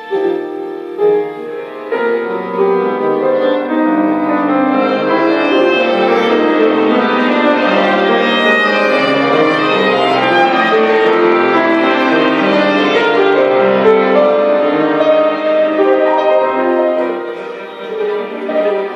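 Contemporary improvised chamber music for piano, two violins and viola, with the bowed strings and piano playing many overlapping notes at once. It swells after about two seconds, holds steady and thins out briefly near the end.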